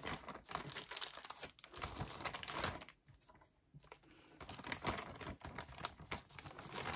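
Clear plastic zip-top bag crinkling and clicking as it is handled and its seal is pressed shut, with a brief pause about three seconds in.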